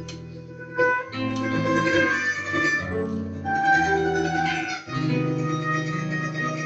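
A live instrumental passage: a ten-string bandolim, the Brazilian mandolin, plays a plucked melody over long, held double bass notes.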